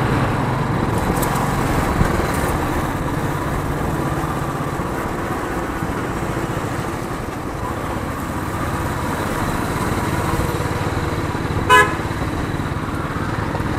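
A motorcycle engine runs steadily at low riding speed in traffic, with a dense low pulsing. A short, loud horn toot sounds once near the end.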